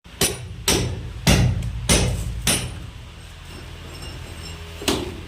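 Hammer blows cutting a pipe hole through a wall for an air conditioner: five sharp strikes about every 0.6 s, then one more near the end.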